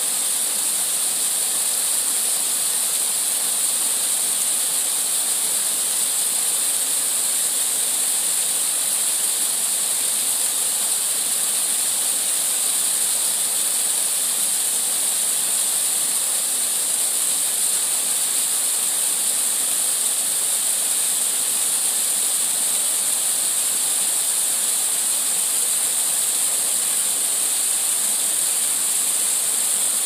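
Small waterfall splashing into a shallow rock pool: a steady hiss of falling water, heavy in the treble with little low rumble.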